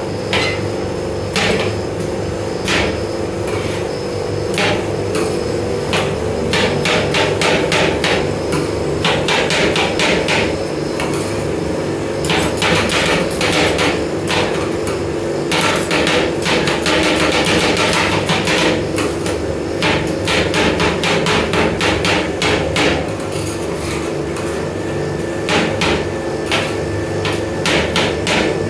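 Two steel spatulas chopping green apple on the steel cold plate of a rolled-ice-cream machine: rapid metal-on-metal clacking in quick runs, sparse for the first few seconds and then dense, over a steady low hum.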